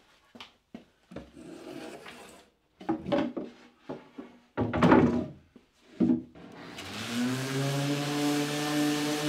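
Plywood board and box knocking and thumping as they are handled and set down on a wooden workbench, the loudest thump about five seconds in. About seven seconds in an electric random orbit sander starts, its pitch rising and settling into a steady run with a hiss as it sands the plywood.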